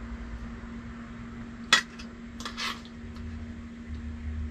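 Metal clinks of a utensil against a tin can as canned corn is spooned out: one loud clink just under two seconds in, then a few softer scraping clinks. A faint steady hum runs underneath.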